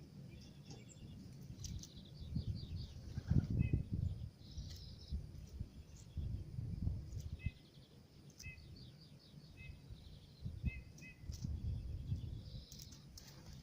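Tits at a bird feeder calling: repeated short high chirps and quick trilled call series throughout, over a low, uneven rumbling noise.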